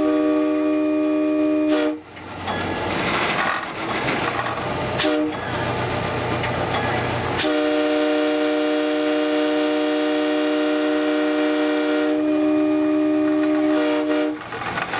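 Multi-chime air horn of an EMD FP9A diesel locomotive, heard from on board, sounding for a grade crossing: a blast of about two seconds, a short toot about five seconds in, then a long blast of about seven seconds. Between blasts the moving locomotive rumbles.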